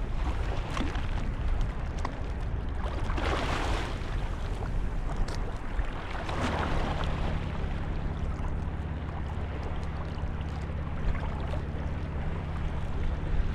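Wind and sea-water noise with a few swells of surf or splashing. About halfway through, a low, steady engine hum joins in and carries on.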